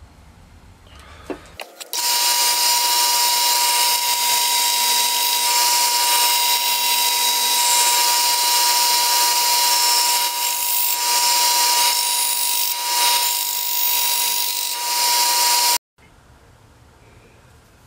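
Belt sander running with a steady high whine and hiss, starting suddenly about two seconds in and cutting off abruptly near the end.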